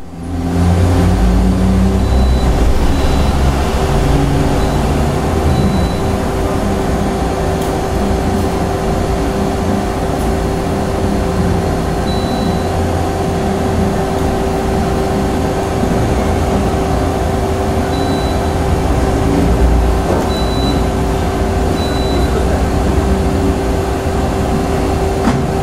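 CNC lathe running, a steady machine hum with a constant whine through it, while its tool turret moves into position.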